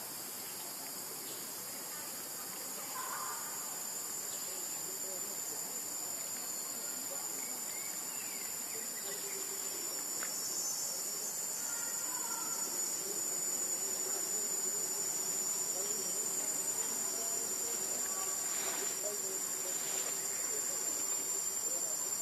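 Steady, shrill chorus of insects droning without a break, with a few faint chirps scattered through it.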